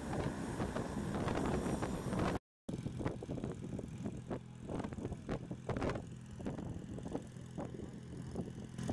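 Gusty wind buffeting the microphone. After a brief dropout, a small ride-on tractor's engine runs steadily as it tows a parked light aircraft, with loose rattling from the tow rig.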